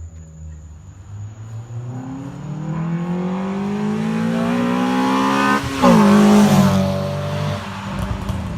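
2014 Honda Civic Si's four-cylinder engine and exhaust revving up under acceleration, its pitch climbing for several seconds. A little past five seconds in the pitch drops sharply and the sound is at its loudest, then the note levels out and eases off.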